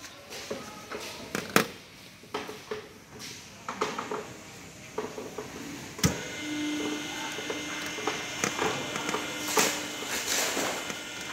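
Sheet-metal shear: scattered mechanical clicks and knocks, then about six seconds in a single sharp bang as the machine strikes. After the bang the machine runs steadily with a hum and a thin whine.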